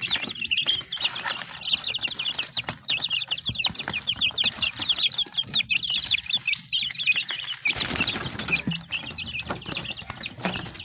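A brood of desi chicken chicks peeping all together, many quick high peeps overlapping, each sliding downward in pitch. From about eight seconds in, a rustle of the chicks shuffling and fluttering joins the peeping.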